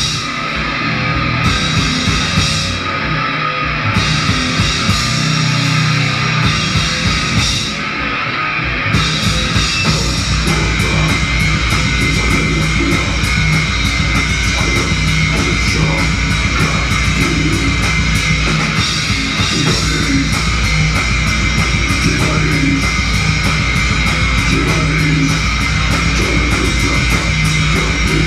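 A heavy rock band playing live: distorted guitar and bass over drums. About nine seconds in, the drums move to a fast, steady cymbal-driven beat that runs on.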